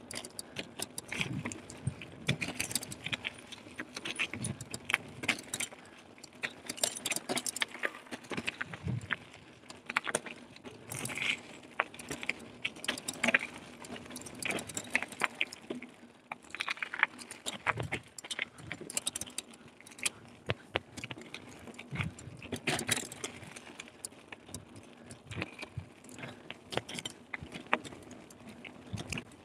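Carrera Hellcat hardtail mountain bike rattling over a rough trail: a dense run of irregular metallic clicks and knocks, several a second.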